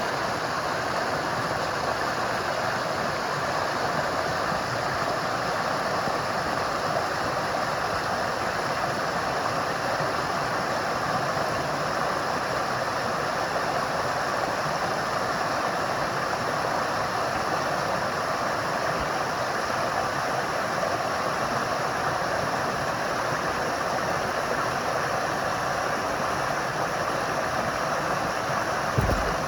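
Steady rush of flowing water, with a brief low thump near the end.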